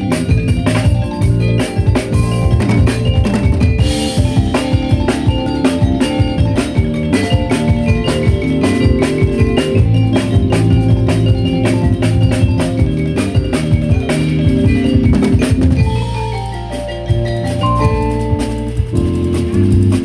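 A fusion band plays live with drum kit, bass and tuned mallet percussion in a busy rhythmic groove. Near the end the drums drop out for a few seconds while the pitched parts carry on.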